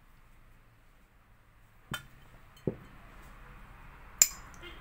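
Glass storage jars clinking as they are handled and set down: three short, sharp clinks about a second apart, the last and loudest near the end.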